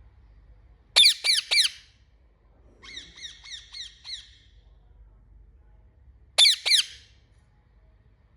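Parrot squawking: three loud squawks about a second in, then a run of about six softer, quicker repeated notes, then two more loud squawks about six and a half seconds in.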